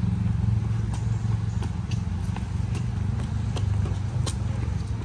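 Running footsteps slapping on a concrete path in quick, uneven succession, loudest about four seconds in as the runner turns close by, over a steady low rumble.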